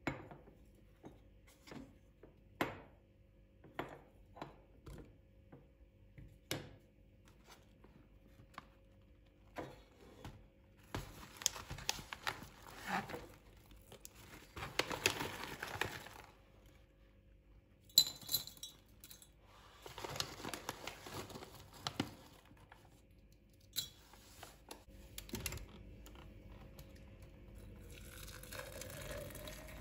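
Kitchen handling sounds: scattered light clicks and knocks, with two stretches of crinkling, tearing noise in the middle. Near the end, water runs into a container, its pitch rising as it fills.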